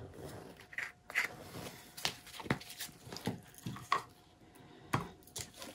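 Handling noises from paint bottles and cups being picked up and set down: scattered light clicks and taps with soft rustling between.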